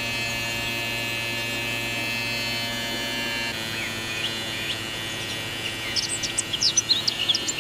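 Small DC motor of a homemade laser line marker spinning its lens, running with a steady electric hum and whine. From about two-thirds of the way in, a rapid series of short high chirps rides over it.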